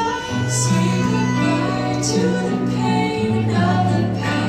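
Fireworks show soundtrack: music with singing and held notes.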